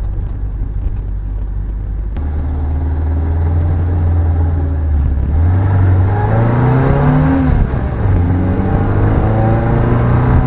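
Car engine heard from inside the cabin, droning steadily, then pulling harder about two seconds in and accelerating, its pitch climbing, dropping briefly at a gear change, then climbing again.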